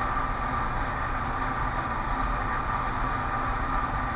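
Steady background hum and hiss with a faint, thin steady tone; no clicks or other distinct events.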